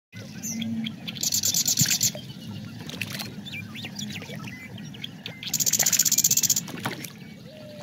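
Animal calls: two bursts of a rapid, high-pitched pulsing trill, about a second each, one near the start and one about two-thirds of the way through, with scattered short chirps over a low rumble.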